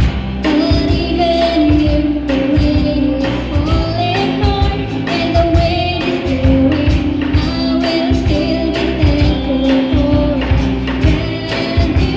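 A song with a sung melody over a full band accompaniment with a steady beat.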